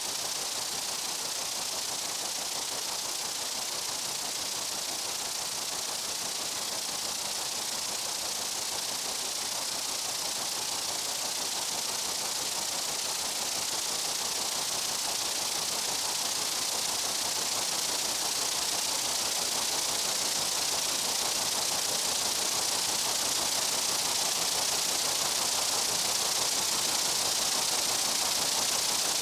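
Steady insect buzzing ambience of a summer meadow: an even, high, hiss-like drone with no breaks or separate calls.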